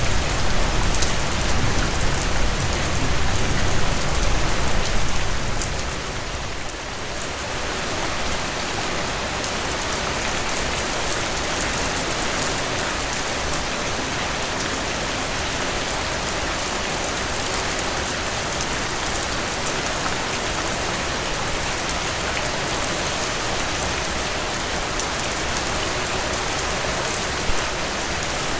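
Steady rainfall, an even hiss of drops on surfaces. A low rumble beneath it drops away about six seconds in.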